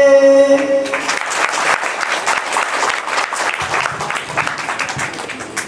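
A held musical note stops within the first second, then an audience applauds, the clapping slowly fading.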